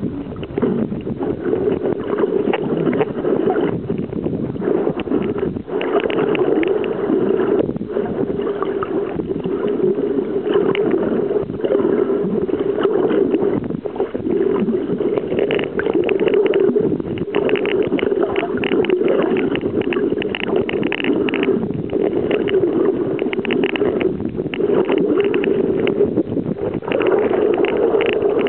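Muffled, steady rush of water heard through an underwater camera housing, with irregular crackling on top.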